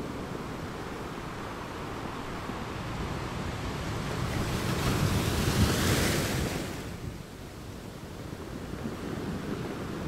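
Surf breaking on a sandy beach: a steady wash of waves that swells to a louder, hissing break about five to six seconds in, then falls back to a softer wash.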